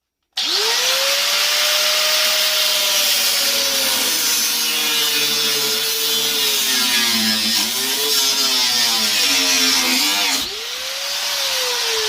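Angle grinder starting up and cutting into the boiler's metal heat exchanger, its motor whine sagging and wavering under load. About ten seconds in the load comes off, and the motor rises again and then slowly winds down.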